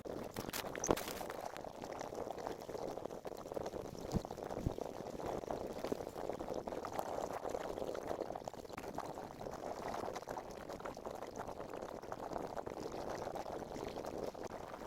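Many small cardboard jigsaw puzzle pieces rustling and clattering, a dense continuous crackle of tiny clicks, with a few sharper clicks about a second in and around four seconds in.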